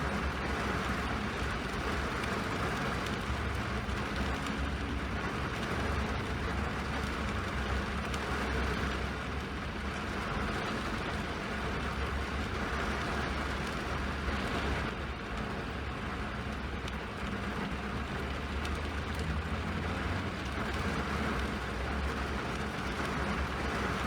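Steady rain noise, an even hiss with a deep low rumble underneath that swells and eases slightly every few seconds.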